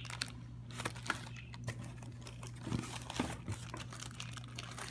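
Packaging being handled and unwrapped, crinkling and rustling in short, irregular bursts with light clicks.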